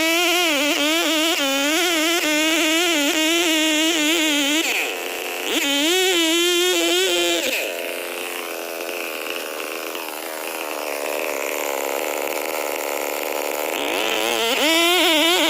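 Large two-stroke Stihl 070 chainsaw running at high revs while cutting wood, its pitch wavering and sagging as the chain bites under load. About halfway through it drops to quieter, lower running, then revs back up near the end.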